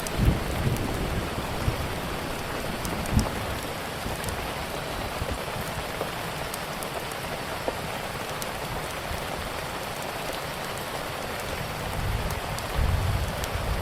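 Steady rain falling, with scattered sharp crackles from a wood fire. There are a few short low thuds, one near the start and one about three seconds in, and a low rumble near the end.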